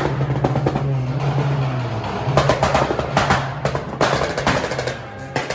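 Background music: a beat with sharp drum hits over a steady low bass note.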